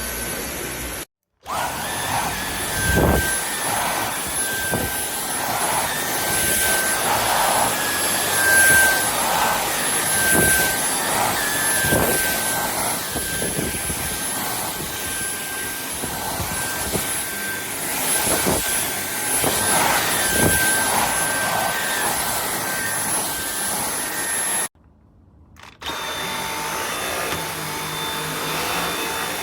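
Dyson V8 cordless stick vacuum running steadily with a high motor whine, with light knocks as it is pushed over the floor. It cuts out briefly about a second in and again near the end, and its whine is at a different pitch once it restarts.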